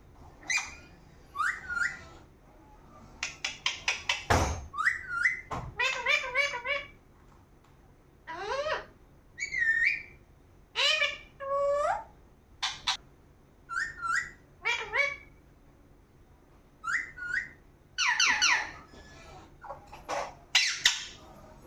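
Indian ringneck parrot calling in short, high-pitched whistles and squawks that glide up and down, one after another with brief pauses. Two sharp knocks sound about four and five and a half seconds in.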